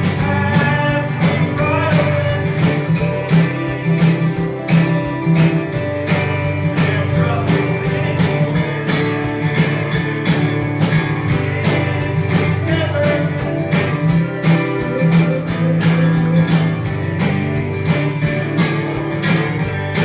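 Country-style gospel music led by a strummed acoustic guitar, keeping a steady, quick strumming beat.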